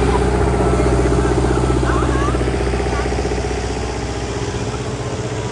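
A vehicle engine idling close by, a steady low running sound that eases off slightly about three and a half seconds in.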